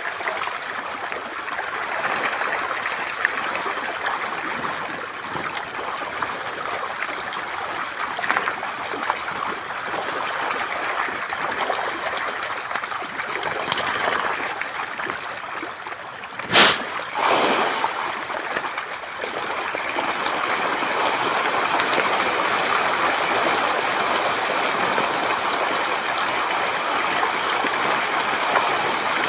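Continuous splashing and gurgling of many fish thrashing at the surface of shallow muddy water, a little louder in the second half. Two sharp knocks come about halfway through.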